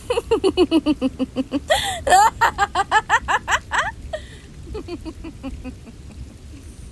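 A woman laughing in a high voice: a quick run of short 'ha-ha' syllables, each falling in pitch, a sharp breath about two seconds in, a second run, then a softer trailing laugh.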